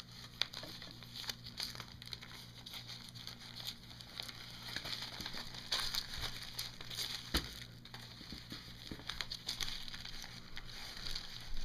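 Wax paper crinkling and rustling as it is folded and creased into thirds, with scattered light crackles and one sharper knock about seven seconds in.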